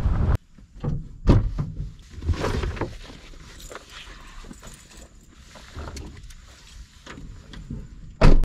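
Wind buffeting the microphone cuts off about half a second in. Then knocks, clatter and rustling as fishing gear is handled at a car's open rear door, with a loud thump near the end.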